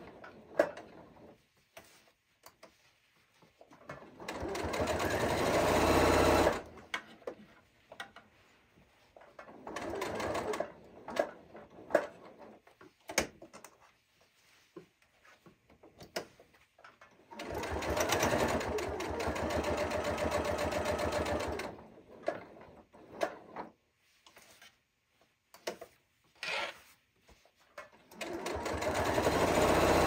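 Janome sewing machine stitching in several runs of a few seconds each, some building up speed before stopping, with short pauses and scattered small clicks between them.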